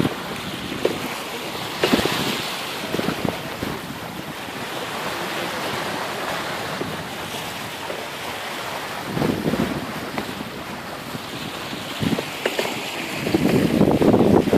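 Water rushing and splashing past the bow of a wooden gaff-rigged cutter under sail, with wind buffeting the microphone. The rush swells in louder surges several times, most strongly near the end.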